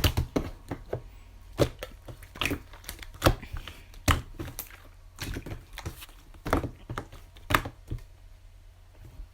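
Irregular sharp taps and clicks, a loud one about every second with fainter ticks between.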